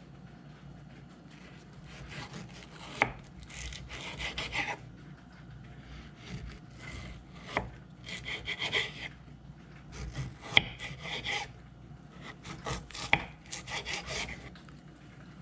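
Kitchen knife slicing a paper-wrapped stick of butter on a wooden cutting board. Each cut is a scraping rub as the blade draws through the wrapper and butter, ending in a sharp tap of the blade on the board. There are four cuts, about two to three seconds apart.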